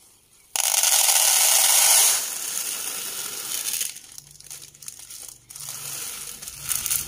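Dried mung beans poured from a plastic bag into a plastic bowl: a sudden loud rush of rattling beans about half a second in, easing after about two seconds, then the thin plastic bag crinkling as the last beans are shaken out.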